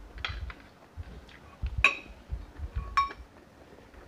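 Metal spoon clinking against a dish twice, each strike ringing briefly. Between the strikes are softer low thumps and mouth sounds of eating.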